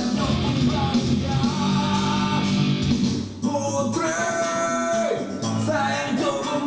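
A rock song with a singer and guitar, played through a 200-watt class-D amplifier under test, with a long held sung note about four seconds in.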